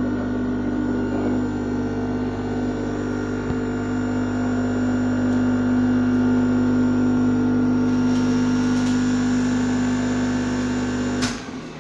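SPRINGER industrial electric motor running at a steady speed on a test after repair, a steady hum-whine made of several fixed tones. It cuts off suddenly near the end.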